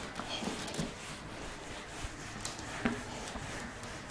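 Whiteboard being wiped clean with a cloth, an uneven rubbing across the board, with a light knock just before three seconds in.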